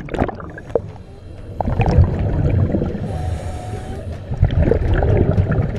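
Scuba breathing through a regulator underwater: bubbling rumbles of exhaled air, with a hissing inhale carrying a faint whistle about three seconds in.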